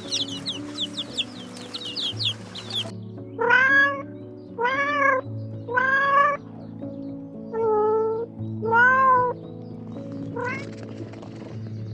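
Chickens clucking for about the first three seconds, then a cat meowing five times in a row, each meow just under a second long, over soft background music.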